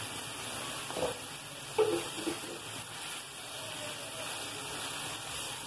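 Mutton liver sizzling as it fries in oil on a tawa, a steady hiss, while a wooden spoon stirs through it, with two short louder scrapes about one and two seconds in.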